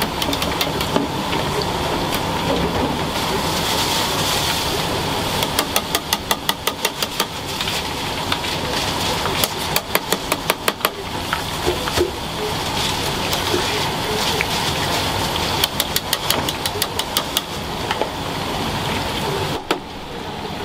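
Steady kitchen noise, with three short runs of rapid, even knife taps on a cutting board, about eight a second: quick chopping.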